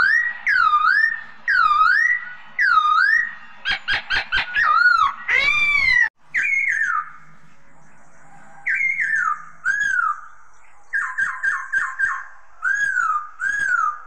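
Caged songbird singing loud, clear whistles. It opens with four dipping notes about a second apart, then a quick run of short notes and a long arched note, and after a pause more whistled phrases: a fast string of five short notes near the end, then two more dipping notes.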